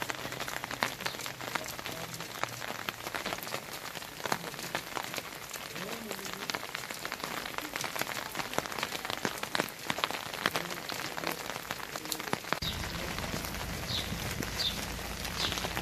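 Heavy rain falling, a steady hiss with many sharp drop impacts spattering on surfaces close by. A low steady hum joins near the end.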